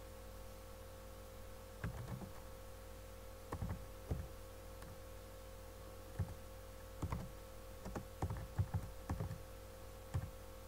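Typing on a computer keyboard: scattered keystrokes in short, irregular runs over a steady low hum.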